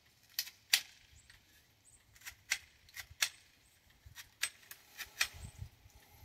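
Sharp metallic clicks and clacks from a mud-fouled HK USP Compact .45 pistol being handled: a magazine being seated and the slide worked by hand against mud. About a dozen irregular clicks, several in quick pairs, with no shots fired.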